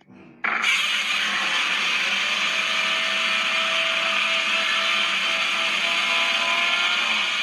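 A made-up kaiju monster sound effect: a loud, harsh, steady grinding noise that starts suddenly about half a second in, with a faint wavering tone running through it.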